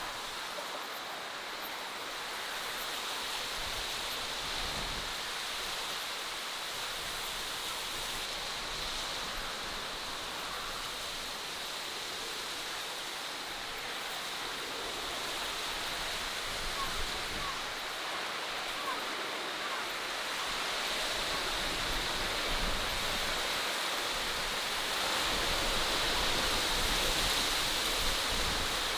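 Steady outdoor nature ambience: an even rushing hiss with no distinct events, growing slightly louder near the end.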